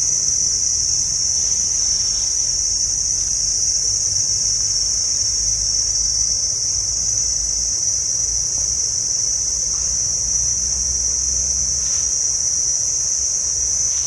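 Insect chorus in a mangrove forest: one steady, unbroken high-pitched drone, with a low rumble underneath.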